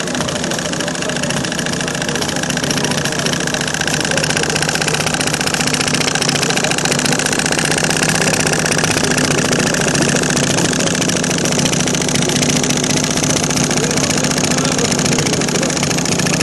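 Small model flame-eater (vacuum) engine running with a fast, steady mechanical clatter, with small hot-air (Stirling) engines running alongside.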